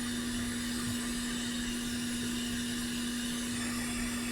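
Small electric blower running steadily: a constant airy whoosh with a steady hum.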